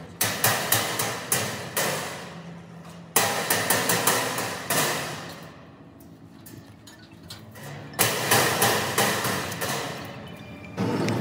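Hammer blows on the sheet metal of a fabricated truck fuel tank, each strike ringing briefly. They come in three runs of about three blows a second, with short pauses between.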